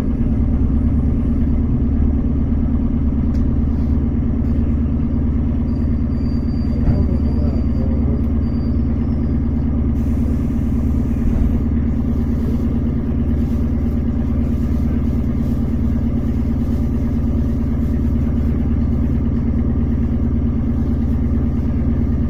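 ER9T electric multiple unit under way: a steady low rumble with a constant hum, unchanging throughout.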